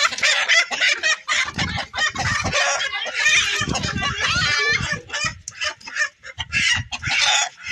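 Chickens squawking and clucking over and over, one chicken being grabbed and carried by hand.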